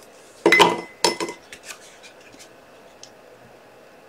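A clatter of small hard objects clinking together on a tabletop about half a second in, with a brief ringing note, followed by a few faint light knocks.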